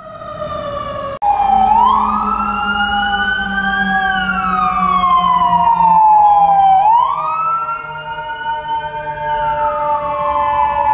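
FDNY fire apparatus sirens. An electronic wail sweeps slowly up and down, about five seconds per cycle, over a second steady siren tone that slowly falls in pitch. The sound breaks off briefly about a second in.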